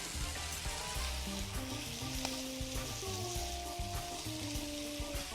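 Chicken slices, celtuce and wood ear mushrooms sizzling steadily as they are stir-fried in hot oil in a pan, with soft background music of held notes underneath.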